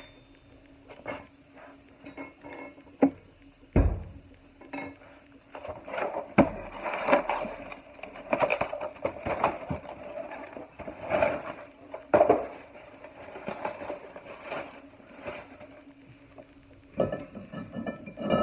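Metal hand tools clinking and knocking against the brake parts while a rusted rear brake rotor is worked off, with a few sharper knocks among the clinks. A faint steady hum runs underneath.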